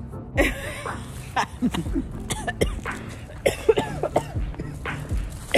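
Short, broken bursts of a person's voice that are not words, sounding like coughs.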